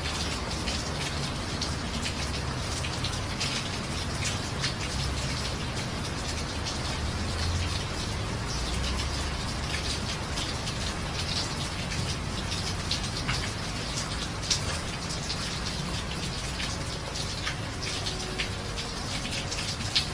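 Steady rain, a continuous hiss with many individual drops ticking through it.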